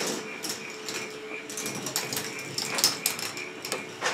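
K'NEX ball machine running: plastic balls clicking and clattering irregularly along the plastic tracks and parts, over a steady motor hum.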